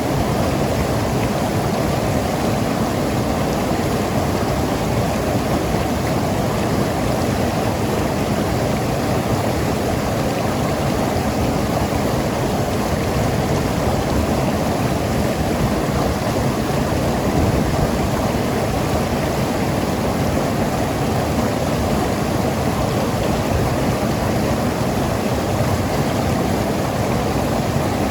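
Mountain river rushing over rocks: a steady, full rush of water with some gurgling and no breaks.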